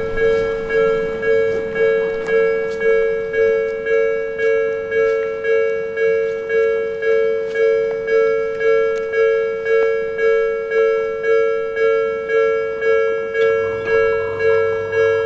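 Japanese level-crossing electronic warning bell ringing, a two-tone ding repeated about three times every two seconds, each strike fading before the next.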